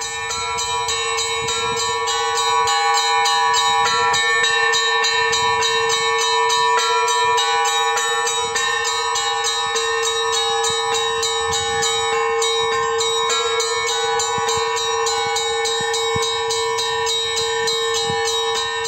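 Orthodox church bells ringing in a rapid, rhythmic peal: small bells struck about four or five times a second over a steady, deeper ringing tone.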